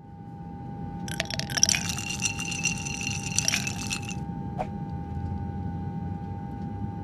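Logo sting sound effect: a steady low rumble under a held humming tone, with a glassy, shimmering sparkle from about one to four seconds in, then a single sharp click.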